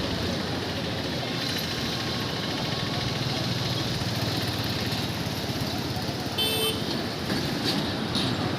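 Steady vehicle and motorcycle traffic noise, with a short horn toot about six and a half seconds in.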